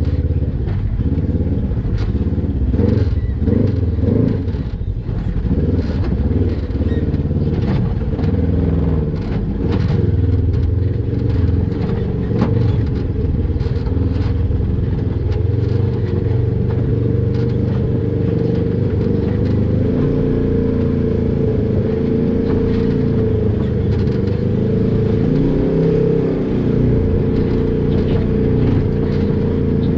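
Polaris RZR XP 1000 side-by-side's parallel-twin engine working at low speed over rocks, its revs rising and falling in the first ten seconds and steadier after about twenty seconds in, with scattered knocks and clatter from rocks and the chassis.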